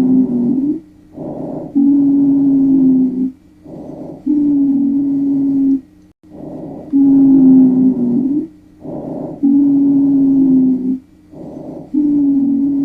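Recorded lung sounds with a wheeze: about five breaths, each a short softer phase and then a longer, louder phase carrying a steady, low-pitched musical tone. A continuous musical breath sound of this kind is the sign of narrowed airways.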